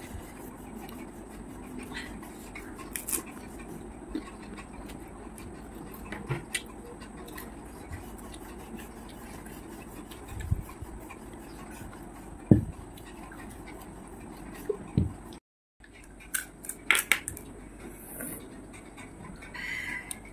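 Someone eating panipuri: crisp fried puri shells cracking and crunching, with wet chewing and light taps of fingers, spoon and glass bowls, in scattered short sharp bursts. The loudest crunch comes a little past halfway, and the sound drops out briefly about three-quarters through.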